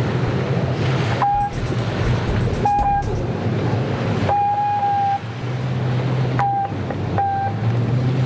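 Personal watercraft engines running at race speed out on the water, a steady low drone over wind and surf noise. A steady high tone sounds five times in short blasts, the third the longest.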